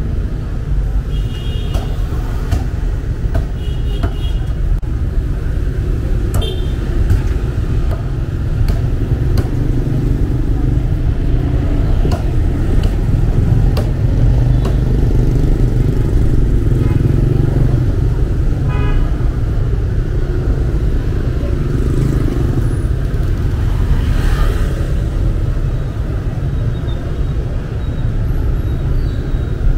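Street traffic of motorbikes and cars passing with a steady rumble, with several short horn beeps.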